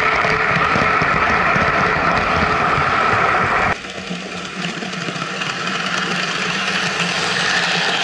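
HO-scale model freight train, a Roco Renfe Class 307 diesel hauling tank wagons, running steadily on the layout's track close by. The sound drops suddenly about four seconds in, then slowly grows louder again as the train approaches once more.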